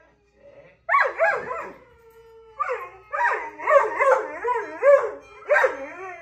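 A Catahoula leopard dog "talking": a run of howl-like, warbling vocalizations whose pitch swoops up and down. A short burst comes about a second in, then a longer rapid string from about two and a half seconds to near the end.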